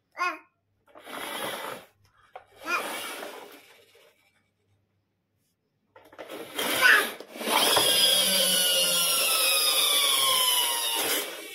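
A toy car scraping and rolling across a hard floor in two short strokes, then whirring loudly with a slowly falling whine for about four seconds before cutting off.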